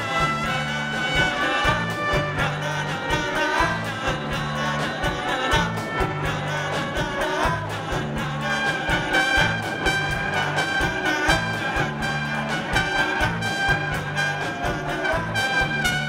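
Live rock band playing an instrumental passage: trumpet carrying the melody over electric guitar, bass guitar and drums, with a steady pulsing bass line. In the second half the trumpet holds longer notes.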